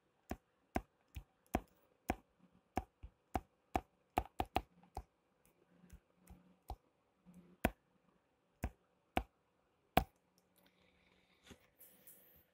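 Irregular sharp clicks from a computer pointing device, about twenty of them, some in quick pairs, as each stroke of handwritten digital ink is put down on screen.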